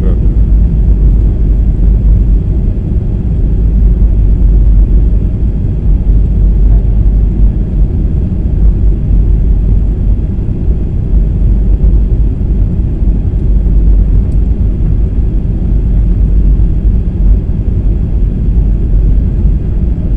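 Steady low rumble of cabin noise inside a jet airliner on its landing approach with flaps extended: engines and airflow heard through the fuselage.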